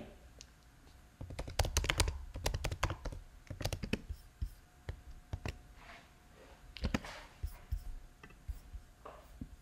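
Typing on a computer keyboard: a quick run of key clicks starting about a second in, then scattered single keystrokes.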